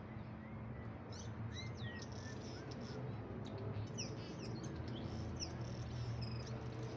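Swallows chirping: many quick, high, falling calls from about a second in, over a steady low hum. The onlooker takes them to be probably upset at their torn-down mud nests.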